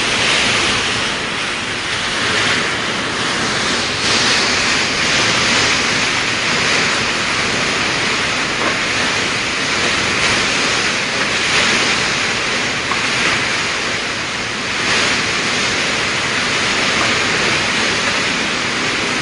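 Typhoon wind and heavy rain: a loud, steady rushing that swells and eases in gusts every few seconds.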